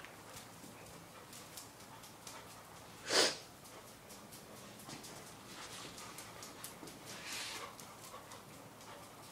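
Springer spaniel sniffing around while tracking a cat, with one loud snort about three seconds in and a softer sniff near the end. A scatter of light clicks from paws on the concrete floor runs under it.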